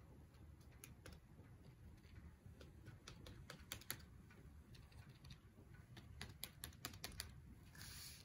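Faint, irregular light clicks of a plastic palette knife tapping dabs of paint onto paper and dipping into paint on a plastic palette sheet.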